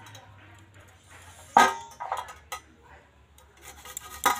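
Garlic rubbed against a flat stainless-steel hand grater resting on a steel plate. There is a sharp ringing metal clink about a second and a half in, and a run of scraping grating strokes near the end.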